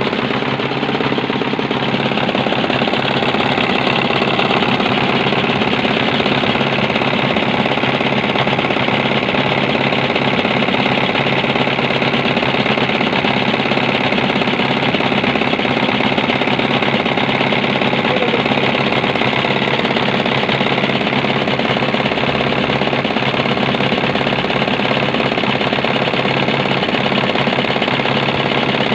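Small Chinese diesel engine of the Dompeng type running steadily at idle, with its rapid, even diesel knock, on a test run after its leaking oil-level indicator was repaired.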